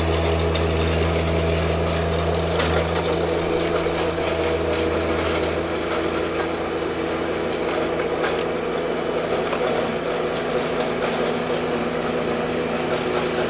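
John Deere 1025R compact tractor's three-cylinder diesel engine running steadily as it drives a rear King Kutter PTO rotary tiller through hard soil. A deep low rumble eases about five seconds in, and a few faint clicks come through.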